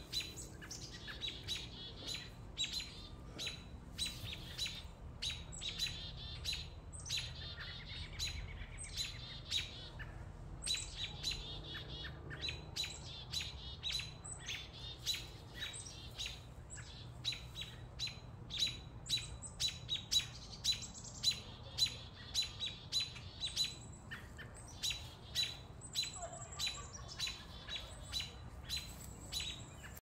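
Birds, a robin among them, giving rapid, sharp alarm chirps several times a second, louder and more frequent in the second half: scolding and mobbing a cat.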